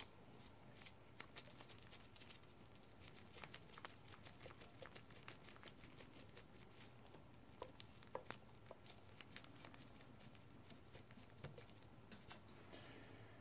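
Near silence with faint, scattered small clicks and ticks as cap head nuts and copper washers are threaded by hand onto the cylinder head studs of a Yamaha TDR250 two-stroke.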